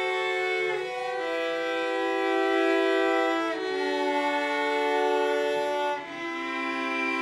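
Three cellos, two acoustic and one electric, bowing long held chords together, the harmony moving to a new chord every two to three seconds.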